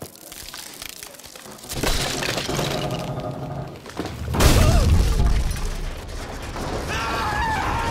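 Cartoon sound effects of a wooden tower top creaking and cracking as it breaks away, then a loud crash with a deep low end as it hits the ground, about four and a half seconds in, followed by rumbling as it tumbles. A short wavering voice-like cry comes near the end.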